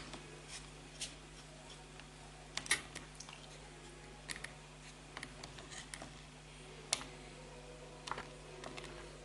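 Quiet room tone with scattered light clicks and taps, irregular, about one or two a second, the sharpest about a third of the way in and again about three quarters through.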